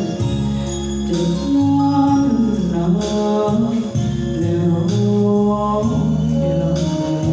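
A man singing into a handheld microphone over backing music with a steady beat, holding long notes that glide in pitch.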